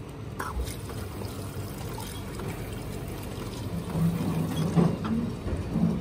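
Drink-bar soda fountain dispenser pouring lemon soda into a glass after its push button is pressed, which clicks about half a second in. The stream grows louder in the last couple of seconds, its low hum stepping up in pitch as the glass fills.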